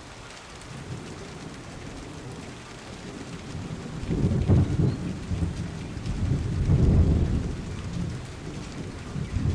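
Steady rain falling, with two spells of low rumbling about four and six seconds in.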